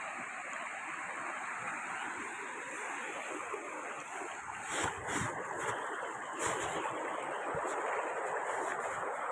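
Shallow stream running over rocks: a steady rush and babble of water, with a few short knocks about halfway through.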